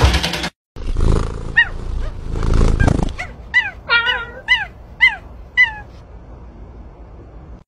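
A small animal's short, high-pitched cries, about eight of them, each falling in pitch, roughly two a second. Before the cries, a loud rush of noise that stops suddenly, and at the very start a printer running briefly.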